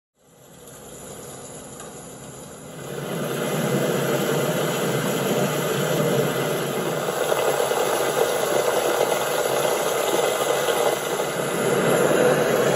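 Heavy rain pouring down, a steady hiss that fades in and then grows much louder about three seconds in.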